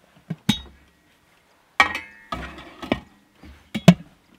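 Metal clunks and clinks of a baking tin going into a small 12 V Travel Buddy oven and the oven being closed up: a handful of separate knocks, some with a short metallic ring, the loudest near the end.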